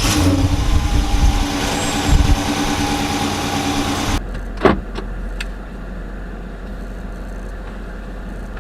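The 2015 Dodge Charger R/T's 5.7 L HEMI V8 running, loud for the first four seconds or so, then suddenly much quieter. A single thump comes just after the drop, and the engine then idles steadily with a low hum.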